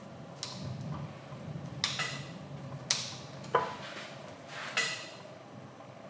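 About five sharp clicks and light knocks, roughly a second apart, some ringing briefly, from a screwdriver and wiring parts being handled at the terminal block on the coffee grinder's housing.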